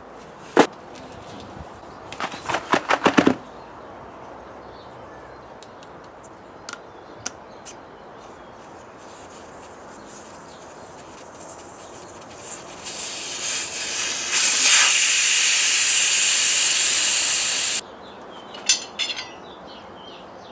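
Air hissing out of a car tyre through its valve as the tyre is let down: it builds over a second or two, holds steady and loud for a few seconds, then cuts off suddenly. Before it, a single thump and a quick run of clatters.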